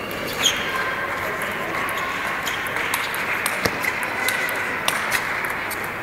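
Table tennis rally: the ball clicking sharply off the rackets and the table several times in quick, irregular succession.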